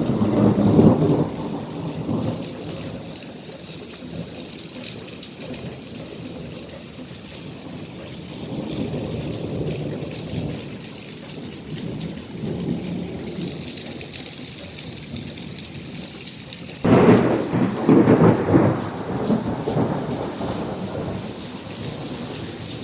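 Heavy rain falling steadily, with rolling thunder. The loudest thunder breaks suddenly about seventeen seconds in and rumbles on for a few seconds.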